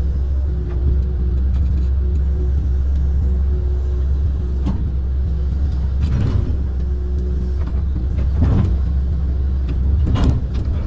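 Kobelco amphibious excavator's diesel engine running under load with a steady low drone, as the boom swings and the bucket digs into brush on the canal bank. Three louder, noisy crashing bursts come about six, eight and a half and ten seconds in.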